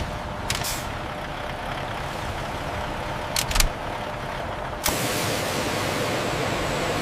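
Steady hum of factory machinery with a few sharp clicks and a louder knock. About five seconds in it cuts abruptly to a brighter, hissing noise.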